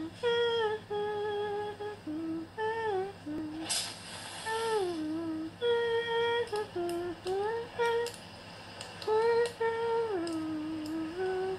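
A woman humming a slow, gliding tune with long held notes. A short hiss comes about four seconds in.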